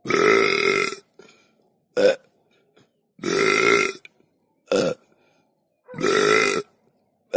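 Loud, deliberate human burps: three long belches about three seconds apart, with a short, sharp burp between each pair.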